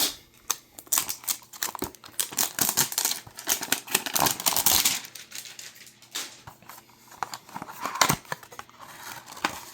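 Trading card hanger box being opened by hand: cardboard tearing and packaging crinkling, with a longer tearing stretch about halfway through, then lighter rustling and clicks as the cards are handled.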